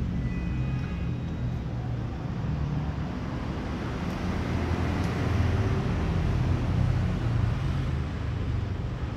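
Steady low background rumble of outdoor noise, such as road traffic, with no distinct events standing out.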